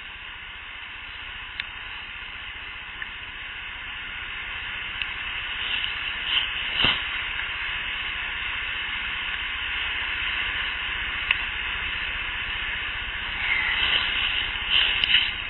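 Steady hiss of an unattended outdoor audio recorder, with a few faint ticks and two short runs of sharper clicks and snaps, one about halfway through and one near the end.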